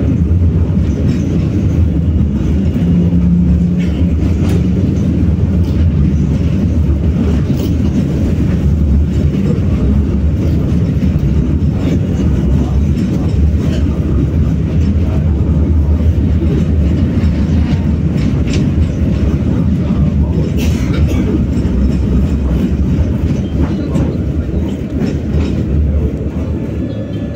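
BKM-60102 tram running along the track, heard from on board: a steady low rumble of wheels and running gear, with scattered clicks and knocks and a brief steady tone about three seconds in.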